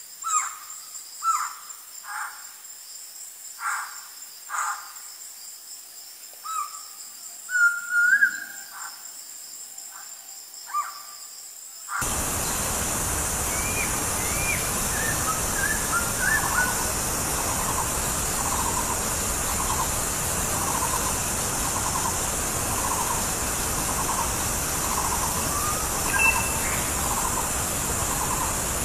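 Black-throated laughingthrush calling: loud separate whistled notes and short phrases. About twelve seconds in, the sound cuts abruptly to a hissier recording, where a run of repeated notes comes about once a second over a steady high hiss.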